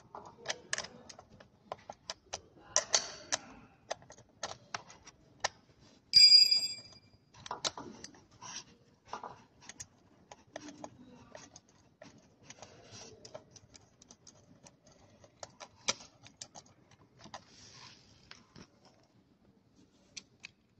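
Small sharp clicks and taps of plastic and metal parts being handled while an e-bike's rear tail light and its mounting bracket are worked on by hand. About six seconds in there is one short metallic ring.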